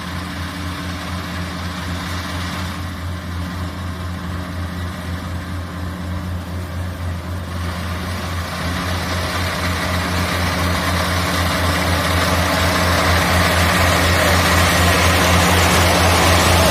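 Combine harvester's diesel engine running steadily with a low throb while harvesting rice paddy, growing louder over the second half.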